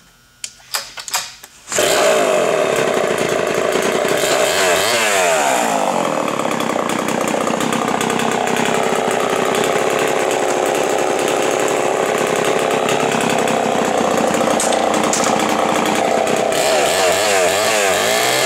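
Homelite Super XL12 two-stroke chainsaw engine, fitted with a new ignition module, starts about two seconds in and then runs loud and steady. It is revved up and down about five seconds in and again near the end.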